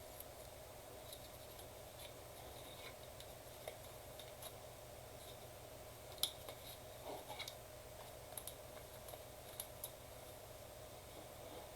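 Faint handling noises of trading cards being sleeved: scattered light clicks and soft scrapes of cards and plastic sleeves, with one sharper click about six seconds in, over a faint steady hum.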